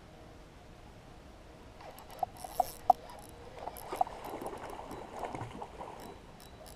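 A hooked pike splashing at the water's surface while being played on a spinning rod. It starts about two seconds in with a few sharp watery plops, then goes on as rougher churning splashes for a couple of seconds before dying down.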